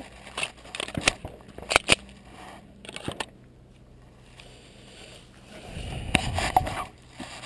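A few sharp clicks and clacks of a 9mm Glock pistol being handled as it is loaded and made ready, the loudest about two seconds in. A low rumbling noise follows near the end.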